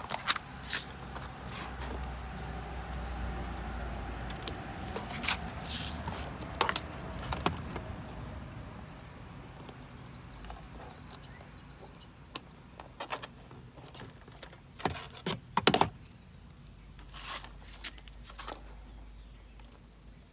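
Scattered clicks, knocks and rattles from handling parts inside a car while a seat belt tensioner's connector is reached and unplugged for testing, with a cluster of knocks about three-quarters of the way through. Faint bird chirps and a low background rumble come and go.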